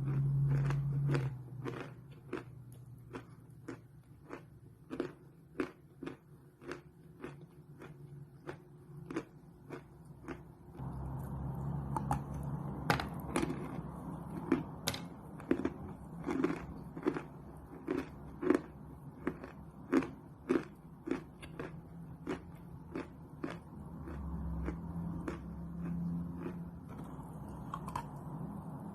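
Close-miked chewing of pressed chalk: sharp, crisp crunches about twice a second, with a low rumble underneath that comes and goes.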